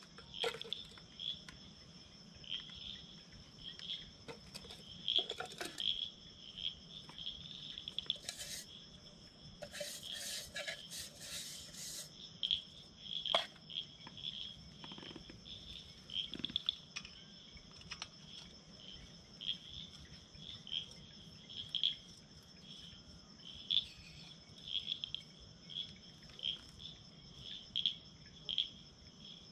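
Insects chirping: a repeated pulsing trill over a steady high buzz. Rustling, scraping and clicks of something being handled break in between about 8 and 12 seconds in.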